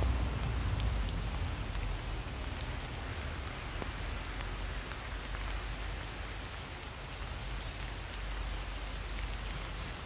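Steady rain falling on leaves and grass: an even hiss with scattered single drop ticks. A low rumble sits under it for about the first second.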